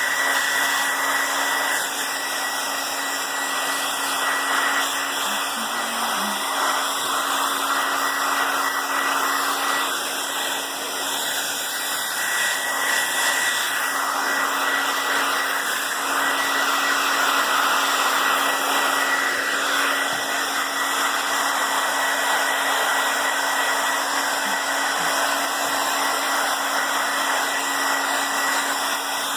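Handheld blow dryer running steadily: an even rush of blown air with a thin, steady high whine.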